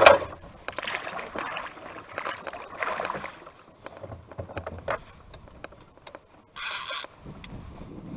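Wooden rowboat on the river: a sharp knock right at the start, then water swishing and splashing around the boat in uneven strokes with a few lighter knocks, and a short hiss near the end. No motor is running.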